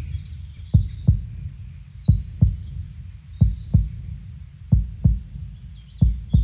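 Heartbeat sound effect: slow double thumps (lub-dub), five beats about a second and a third apart, over a low steady rumble.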